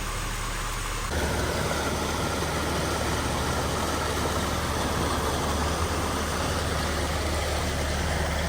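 Jeep Gladiator running on a trail: steady low engine drone with tyre and road noise. The sound changes abruptly and gets a little louder about a second in.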